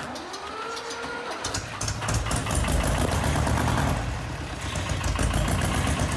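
A tractor engine starting: a rising whine for the first second or so, then the engine catches about a second and a half in and runs with a steady low rumble.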